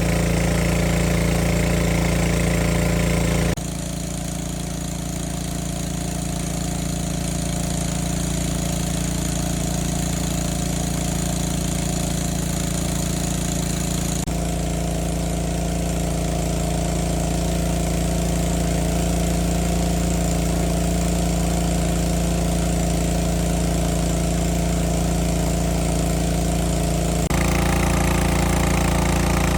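Small boat engine running steadily, its tone changing abruptly three times.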